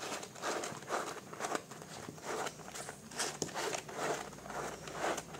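Plastic spiral binding coil being twisted through the punched holes of a paper booklet: repeated short rustling scrapes of plastic on paper, about two a second.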